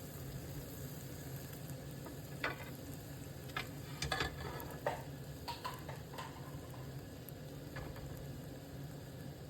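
Beef mince and vegetables sizzling in a pan with a little water, while a utensil scrapes and clinks against the pan several times in the middle as the mixture is stirred.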